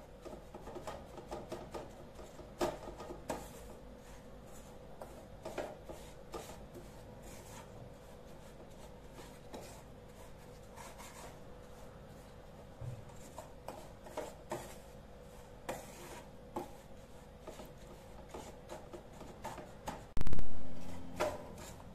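Wooden spatula scraping and stirring a dry, crumbly rice-flour, coconut and milk-powder mixture in a nonstick pan, in irregular short scrapes over a faint steady hum. A loud low thump comes near the end.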